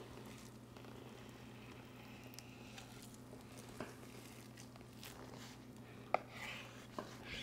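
Quiet sounds of a knife cutting through raw beef brisket and gloved hands moving the meat on a wooden cutting board, with a few soft taps, the clearest about six seconds in, over a steady low hum.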